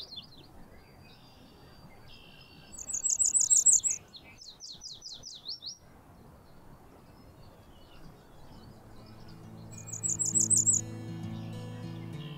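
Cape May warbler singing: a run of very high, thin, rapidly repeated notes about three seconds in and again about ten seconds in, with a slower run of lower, falling notes between them. Soft background music fades in during the second half.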